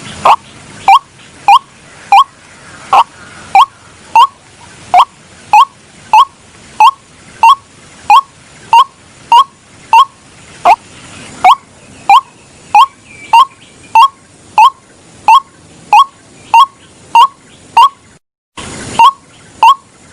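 White-breasted waterhen (ruak-ruak) giving its mating call: one short, sharp note repeated evenly about one and a half times a second, each note dropping slightly in pitch. It cuts out briefly near the end and starts again.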